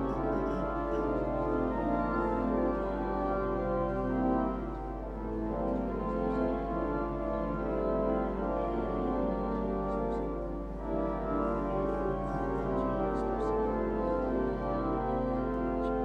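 Church organ playing sustained chords as an instrumental interlude between verses of a communion hymn.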